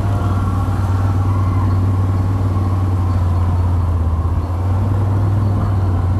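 Quad bike (ATV) engine running steadily as it is ridden, a continuous low drone with a brief dip about four and a half seconds in.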